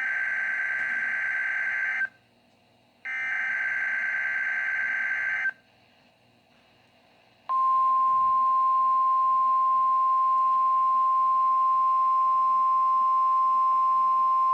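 NOAA Weather Radio weekly test heard through a weather radio: two screechy bursts of SAME digital header data, each about two and a half seconds long with a second's gap between them. After a short pause the steady 1050 Hz warning alarm tone comes on about seven and a half seconds in and holds.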